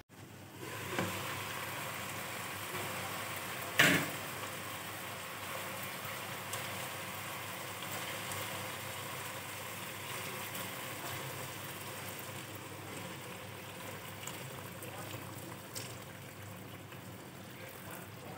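Water poured from a stream into a hot pan of sautéed chicken, a steady splashing hiss as the pan fills with broth, with one sharp knock about four seconds in.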